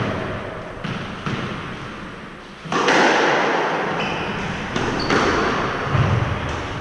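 Squash being played: sharp knocks of the ball against racquets and the court walls, echoing in the court, with play picking up about two and a half seconds in. Two short squeaks of shoes on the wooden floor follow.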